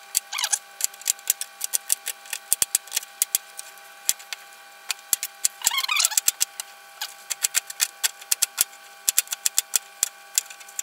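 Kitchen knife chopping an onion on a plastic cutting board: irregular runs of sharp taps, several a second, broken by short pauses.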